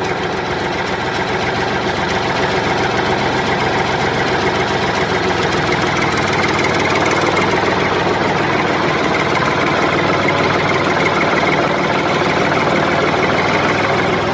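A motor running steadily with a fast, rattling, engine-like knock, holding an even level.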